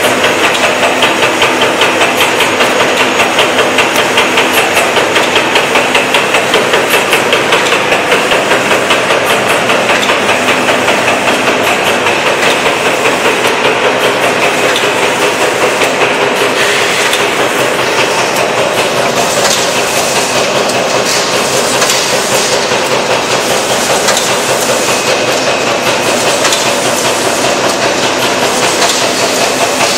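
Fully automatic wet-wipes folding and packaging line running, its mechanisms making a steady, rhythmic mechanical clatter.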